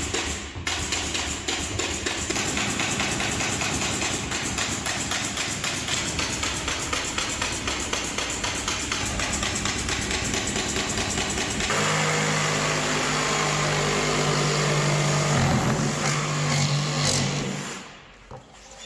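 Power tools running during partition construction. There is a fast, continuous rattling for about twelve seconds, then a steadier motor hum that stops near the end.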